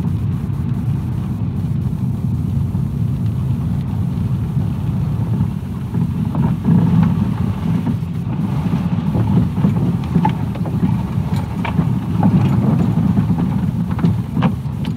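Car driving on a snowy, then muddy, rutted forest track, heard from inside the cabin: a steady low engine and tyre rumble, with scattered knocks and bumps from about six seconds in as it runs over the rough ground.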